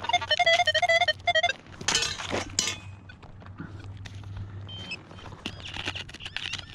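Nokta Legend metal detector sounding a repeated high target tone for about a second and a half as the coil passes over a strong signal, followed by a few sharp knocks and scrapes of digging in hard, stony ground.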